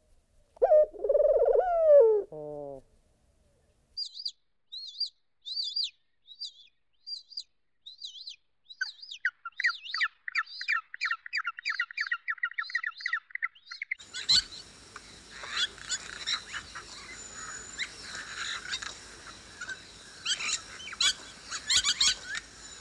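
Birds calling: a short call with a bending pitch, then a run of separate high chirps and a fast trill, and a little past halfway a dense chorus of many birds chirping at once over a steady hiss.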